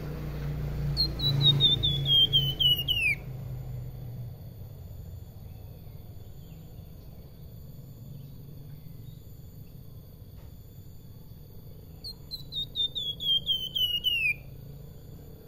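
Caged flamboyan (salakan) songbird singing two runs of about ten quick, clear whistled notes that step down in pitch, one about a second in and one near the end. A low rumble sits under the first few seconds.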